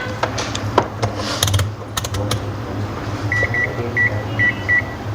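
Digital multimeter's continuity buzzer giving five short beeps of one high tone, starting about three seconds in, while the probes are held on a phone's ringer speaker terminals. A few sharp clicks of probe handling come before the beeps.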